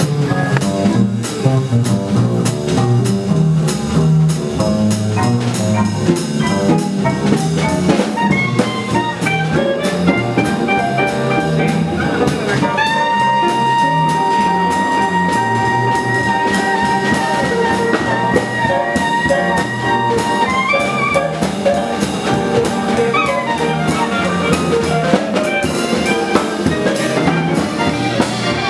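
Small swing jazz band playing live: clarinet, guitar, piano, a walking double bass line and drums keeping time on the cymbals. About halfway through, the clarinet holds one long note for around seven seconds before moving on.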